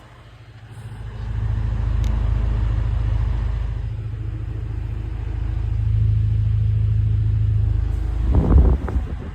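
Vintage GE table fan running: a steady low motor hum, with its air stream rumbling on the microphone. A few louder bumps come near the end.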